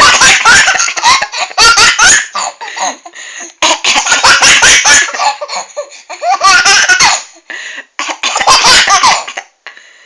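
Baby laughing loudly in several bouts with short pauses between, laughter set off by its mother's coughing.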